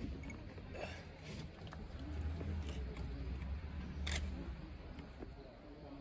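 Camera shutters clicking now and then, with one sharp click about four seconds in, over a low steady rumble.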